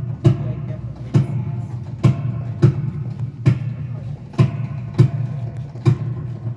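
Live band playing instrumentally, without vocals: drums hitting a steady beat about once a second over guitar.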